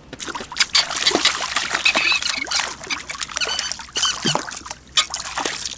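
Irregular water splashing and dripping as a hooked perch thrashes at the surface while being landed.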